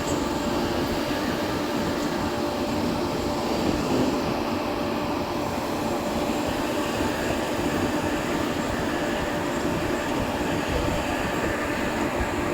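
Vertical lathe running in a machine shop: a steady mechanical drone with a constant low hum and faint whining tones, unchanging throughout.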